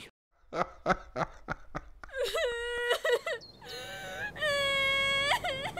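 A woman crying: about eight quick sobbing gasps, then a run of long, high wails.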